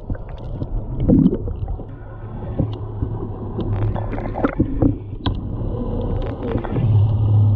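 Muffled sound from a camera held underwater in the sea: water sloshing and gurgling against the camera, with scattered knocks and clicks, over a low steady hum that swells near the end.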